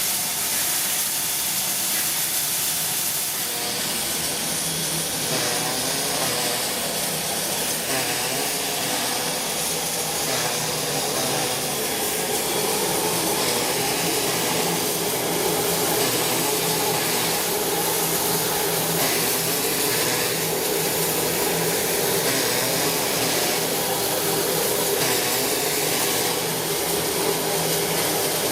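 Steady hiss and rumble of a steam train, with a low hum that firms up after a few seconds.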